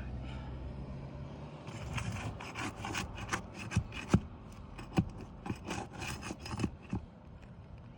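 Rough scraping and rubbing of a tool worked against asphalt roof shingles, broken by sharp taps and knocks, as the shingles are pried loose to reach the nails beneath. The scraping starts about two seconds in.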